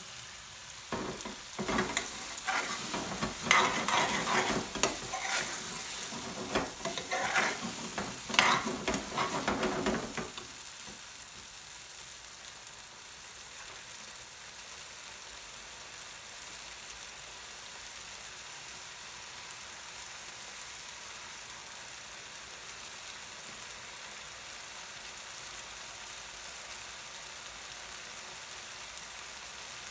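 A metal spoon stirring and scraping curry around an aluminium frying pan on a high gas flame for about ten seconds, then the curry left sizzling steadily on its own.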